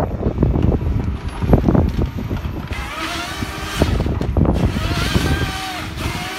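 Tracked timber harvester working, its diesel engine and hydraulics running under load. A steady whine comes in about three seconds in. Wind rumbles on the microphone in the first seconds.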